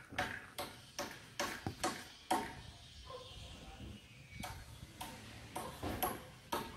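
Screwdriver clicking and tapping on a Honda Shine's front brake panel and speedometer drive gear: irregular sharp metallic clicks, some with a short ring, with a lull in the middle.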